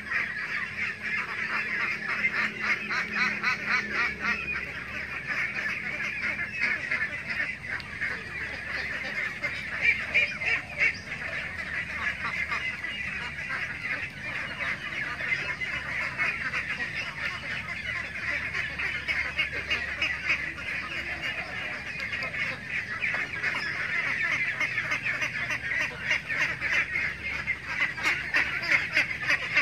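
A large flock of young laying ducks calling all together: a dense, unbroken chorus of many short overlapping calls.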